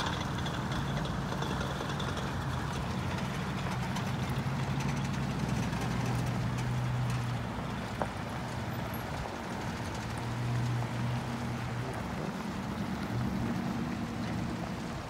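Pickup trucks and cars driving slowly past one after another on a dirt road, their engines giving a steady low hum that swells and fades as each vehicle passes. A single sharp click about eight seconds in.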